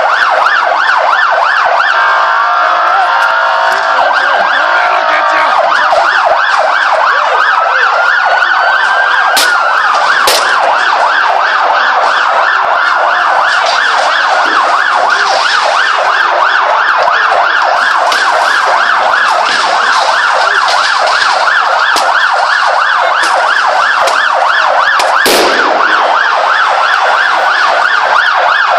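Emergency-vehicle siren sounding without a break in a fast yelp, with slower wailing glides rising and falling over it. A few sharp cracks cut through, the loudest a few seconds before the end.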